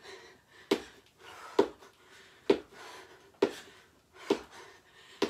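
Rhythmic thuds of trainers landing on a plastic aerobics step and the floor during high-knee step drives, about one a second, with the exerciser's breathing between them.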